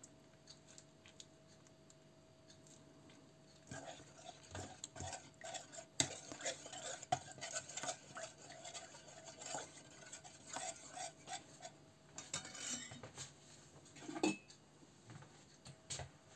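Metal spoon stirring and scraping in an enamel bowl, mixing sour cream into a runny tomato gravy: irregular clinks and scrapes of metal on enamel, starting a few seconds in.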